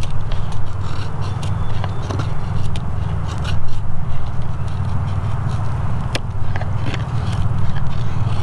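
Scandi-ground bushcraft knife shaving a wooden stick: a run of short, irregular scrapes and clicks as the blade bites and peels off shavings, over a steady low rumble.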